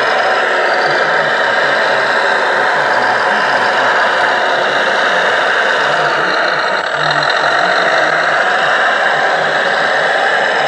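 The sound module of a radio-controlled Volvo L250G wheel loader model plays a diesel engine running steadily as the loader works.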